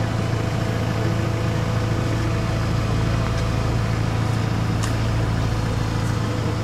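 Diesel engine of a construction machine idling, a low, even hum, with one light clink about three-quarters of the way in.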